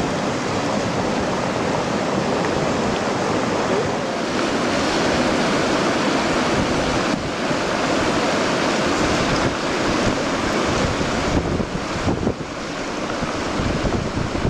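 Muddy flash flood surging down a dry desert riverbed: a steady, loud rush of churning water, with wind on the microphone.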